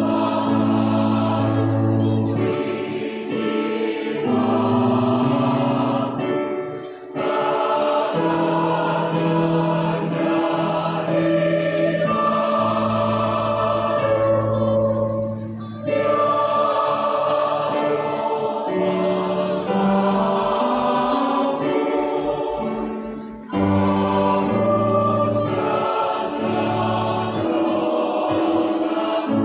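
Mixed adult choir singing a sacred piece in harmony: long sustained phrases, broken by short breaths about 7, 16 and 23 seconds in.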